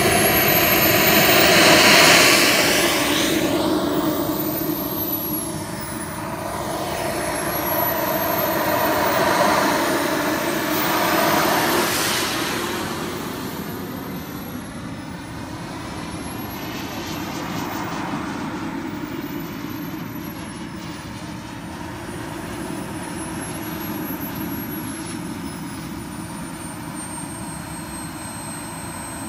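Viper Sport Jet RC model's K-100 turbine engine in flight: a jet whine with a high whistle that rises and falls in pitch again and again as the jet flies its passes. It is loudest about two seconds in and again around ten to twelve seconds, then quieter as the jet flies farther off.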